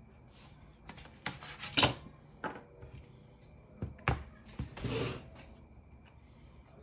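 Clicks, knocks and short rubbing or scraping sounds of tools and parts being handled at a repair bench, in a cluster starting about a second in; the loudest knock comes about two seconds in. A faint steady high tone runs underneath.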